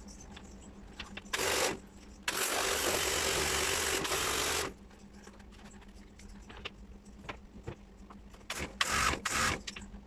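Pressure washer spraying water into an air-conditioner's indoor unit in bursts as the trigger is squeezed and released: a short burst, then a longer one of about two and a half seconds, then several short bursts near the end. A low steady hum runs underneath.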